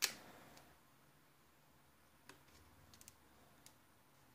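Pages of a paper art book being turned by hand: one sharp paper flick at the start, then a few faint paper ticks over the next couple of seconds.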